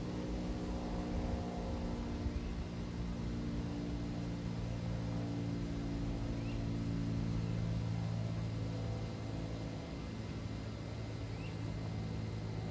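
UPS Boeing 767-300 freighter passing high overhead: its twin GE CF6 turbofan engines make a steady low drone with a hum of several tones, which swells a little around the middle.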